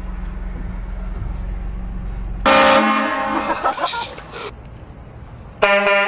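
Vehicle-mounted air train horn blasting a loud chord of several notes. It starts suddenly about two and a half seconds in and dies away over the next two seconds, then blasts again near the end. A low, steady engine hum runs under the first part.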